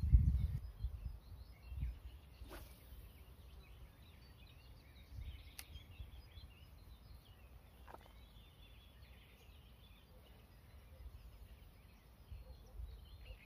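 Small birds singing and chirping continuously around a reed bed, with wind rumbling on the microphone, loudest in the first couple of seconds. Three faint sharp clicks are heard along the way.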